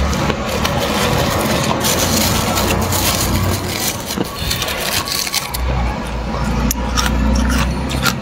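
Fingers scraping and crunching thick freezer frost, with frost-coated plastic food bags crinkling. Continuous gritty crunching made of many small clicks.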